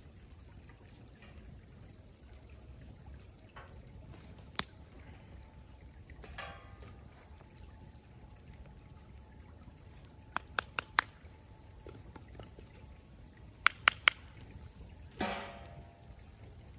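Creek water trickling steadily, broken by sharp knocks: one about five seconds in, a quick run of four near the middle, three more a few seconds later, then a short clatter near the end.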